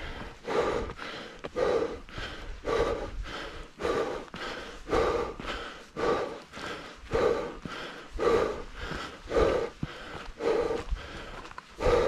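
A hiker's heavy breathing while climbing a steep trail, one loud breath about every second in a steady rhythm.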